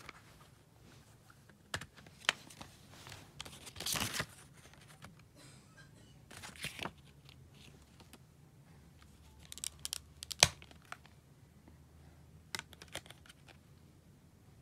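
Plastic CD jewel case being handled and opened, and the disc lifted off its hub: scattered sharp clicks and snaps, the loudest about ten seconds in, with a few short rustling scrapes of plastic.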